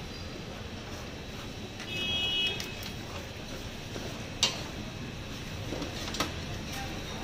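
Clatter of hands working with stainless trays and plastic fruit boxes: a sharp knock about four and a half seconds in and a smaller one about six seconds in, over a steady background hum. About two seconds in, a brief high beeping tone sounds.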